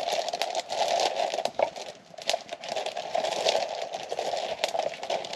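Small campfire of kindling and a firelighter crackling as it catches, with irregular sharp pops over a steady hiss.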